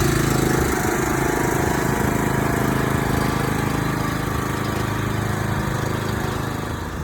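Tractor engine running steadily, a little quieter near the end.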